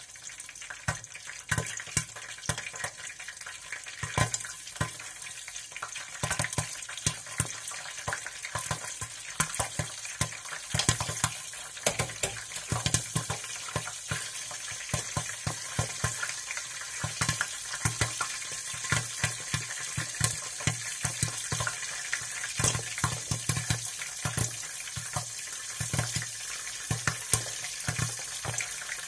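Steady crackling and sizzling from the heating boiler, with many sharp irregular crackles and soft low thuds, like food frying.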